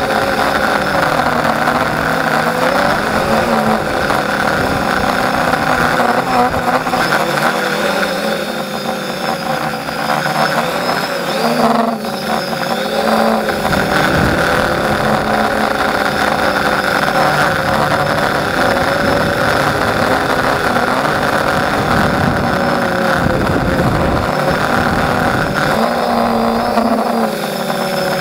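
Electric motors and propellers of a scratch-built quadcopter in flight, heard from a camera on its frame: a steady multi-tone whine and buzz whose pitch wavers up and down as the motor speeds change. The propellers are not yet balanced.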